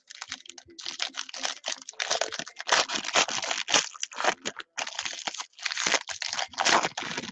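Foil trading-card pack wrapper being torn open and crinkled by hand: a continuous run of irregular, crackly rustling.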